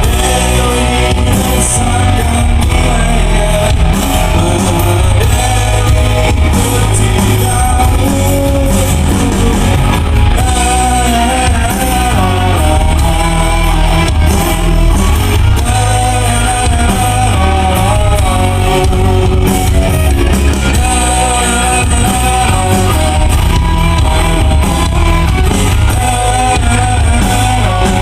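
Amplified rock band playing loud and steady, with a wavering sung melody over heavy bass and drums.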